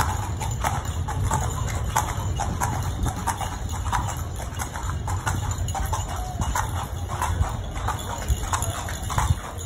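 Carriage horse's hooves clip-clopping on a paved street at a steady pace, a few hoof strikes a second, over a continuous low rumble.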